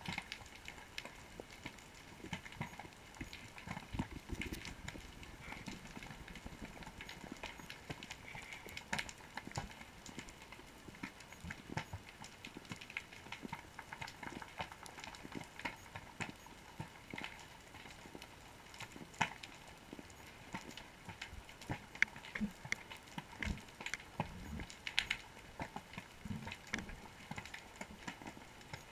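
Underwater reef crackle: a steady stream of irregular clicks and pops, with a few louder sharp clicks scattered through, heard from a camera in its waterproof housing on the seabed.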